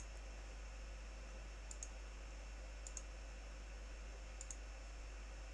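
Faint clicks of a computer mouse button, four in all, each a quick double tick of press and release, about one to one and a half seconds apart, over a steady low hum.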